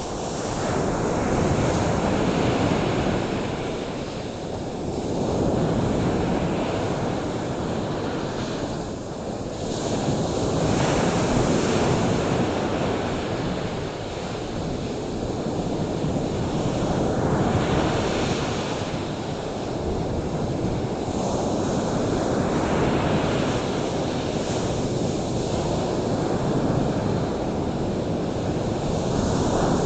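Ocean surf: waves breaking and washing in, the noise swelling and easing every few seconds, with wind buffeting the microphone.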